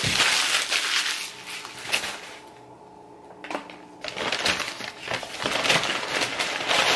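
Paper fast-food bag and food wrappers rustling and crinkling as they are rummaged through, in two spells with a quieter pause in the middle.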